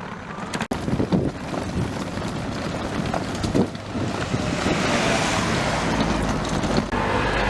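Wind buffeting the microphone with a steady low rumble of street noise, growing fuller about halfway through.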